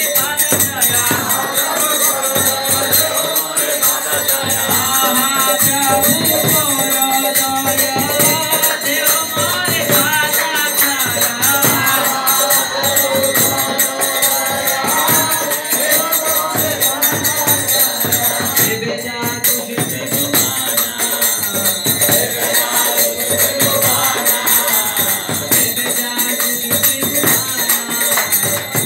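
Group of voices singing a devotional bhajan to a constant metallic jingle of hand percussion.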